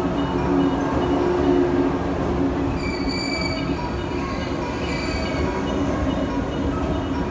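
JR West 117 series electric train rolling slowly along the platform with a steady low rumble and hum. Two brief high squeals come from its wheels about three and five seconds in.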